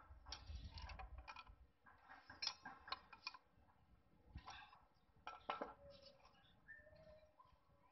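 Small steel valve-train parts and a metal tool clinking and tapping on a Toyota L diesel cylinder head during valve seal replacement: scattered light clinks in small clusters, the sharpest about two and a half and five and a half seconds in.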